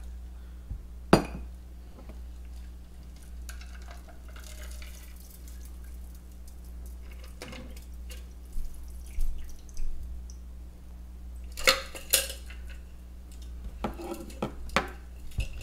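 Cocktail being strained from a stainless steel shaker tin through a fine-mesh strainer into a glass: the liquid trickles and drips through the mesh, with sharp metal-on-glass clinks of the strainer and tin, once about a second in and twice more near the end.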